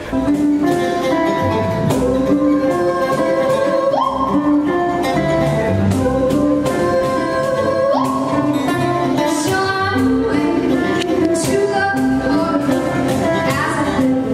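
Live acoustic music: a woman singing over strummed and plucked acoustic guitar. She holds long notes and leaps up in pitch about four seconds in and again at eight.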